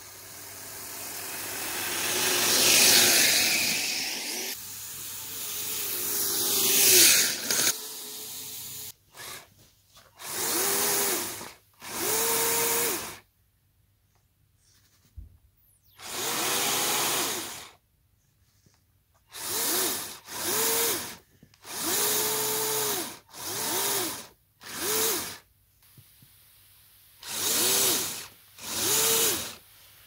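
Radio-controlled model snowcat's electric drive motors and gearing whining. First comes a long continuous run that swells twice, then about ten short bursts, each rising and falling in pitch, as the throttle is blipped while the blade pushes into snow.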